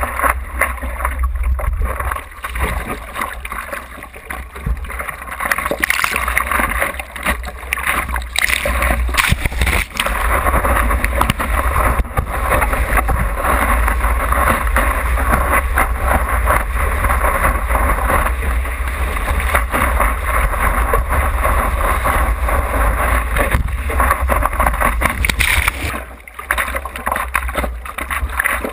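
Water rushing and splashing over a surfboard's nose and a board-mounted action camera in its waterproof housing, over a constant low rumble of wind and water on the housing. The rush is loud and steady through the middle while the longboard rides broken whitewash, and drops off briefly near the end as the surfer lies down to paddle.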